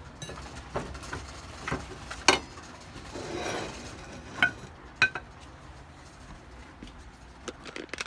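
Dishes and utensils clinking and knocking in a few separate sharp strikes, the loudest a little over two seconds in, with a short scraping rustle around three seconds in.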